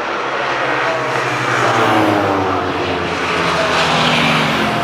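Classic racing sidecar outfit's engine running hard at speed as it passes, its pitch falling as it goes by.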